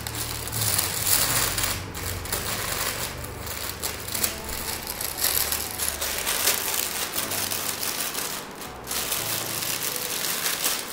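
Clear plastic packaging crinkling and rustling as it is handled and pulled off a boxed plastic spice-container stack, a steady run of irregular crackles.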